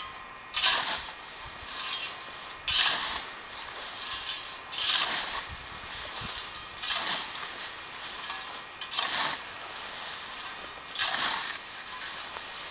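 A hand scythe mowing tall grass: the blade swishes through the stems in six evenly paced strokes, about one every two seconds.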